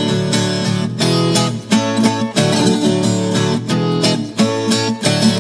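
Viola caipira, the ten-string steel-strung Brazilian folk guitar, playing an instrumental passage of a moda de viola: quick plucked notes over strummed chords, with no singing.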